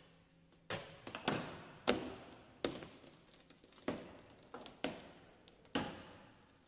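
About ten sharp cracks and pops at irregular intervals, each ringing out briefly: the Chevrolet Camaro's roof structure giving way as a steel plate is pushed down onto it in a roof-crush test.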